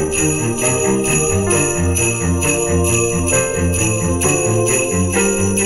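Background Christmas music with sleigh bells jingling steadily over a moving bass line and other instruments.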